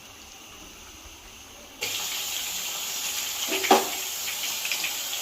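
Chicken 65 pieces frying in hot oil: a steady sizzle with fine crackling that starts suddenly about two seconds in, after a quiet moment. A brief knock sounds in the middle of the sizzle.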